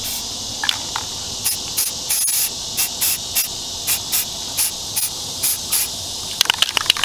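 Aerosol spray-paint can sprayed through a stencil in about a dozen short hissing bursts, over a steady background of insects. A quick run of sharp clicks comes near the end.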